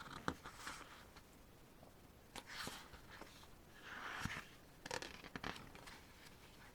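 Pages of a glossy photo book being turned by hand: a few soft paper swishes with light clicks of handling, spaced a second or two apart.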